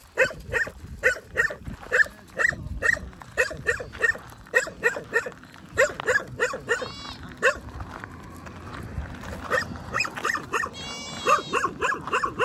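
A dog barking repeatedly, about two to three barks a second, with a short lull near the middle and a few higher yelps late on.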